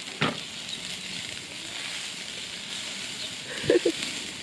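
Sausages sizzling on a kettle barbecue grill, a steady hiss. A short knock comes about a quarter second in, and two brief loud clacks near the end as metal tongs lift a sausage.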